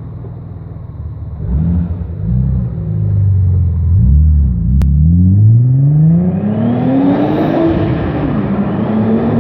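Tuned Audi S4 B5's 2.7-litre twin-turbo V6 revving: a few short blips, then one long rev climbing for about three seconds before dropping back, and another small rise near the end.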